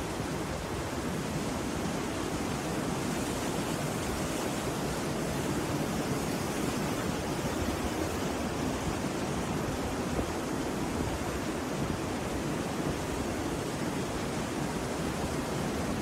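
Rough sea surf breaking and washing up a beach: a steady, unbroken rush of noise.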